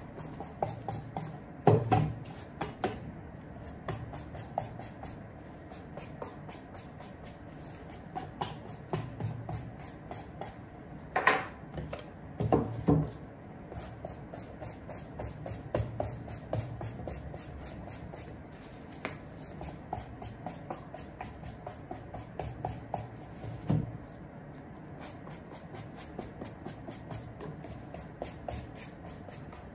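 A wooden-handled brush scrubbing a suede shoe upper in quick, short back-and-forth strokes to raise and clean the nap. A few louder knocks and handling noises come from the shoe being turned and shifted.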